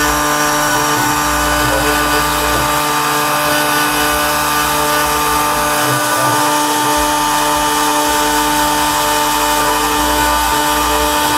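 CNC spindle running steadily with a whine of several held tones as a fine engraving bit mills copper off a double-sided PCB. Underneath, a low hum from the machine's axis drives starts and stops every second or two as the head moves along the traces.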